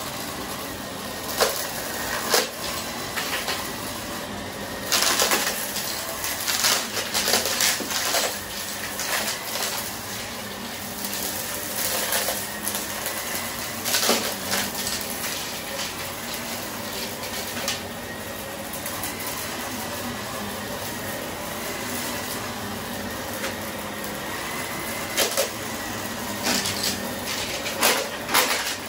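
Vacuum cleaner running over carpet, with crackling and rattling as confetti is sucked up; the crackling comes in spells, thickest about five to eight seconds in and again near the end.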